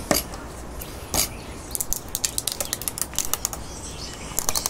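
Light, irregular clicks and taps from a wooden stingless-bee hive box being handled and turned over. Single clicks come near the start and about a second in, then quick flurries in the middle and again near the end.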